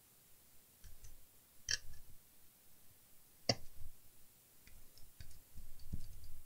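Sparse clicks and light taps of a screwdriver and fingers on the metal chassis and board of an opened PC switching power supply as its screws are worked loose. Two sharper clicks, the first about a second and a half in and the second about two seconds later, with fainter ticks and soft knocks after.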